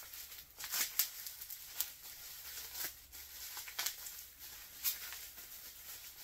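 Clear plastic bag and packing wrap crinkling and rustling in the hands as a small part is unwrapped, in short crackles roughly once a second.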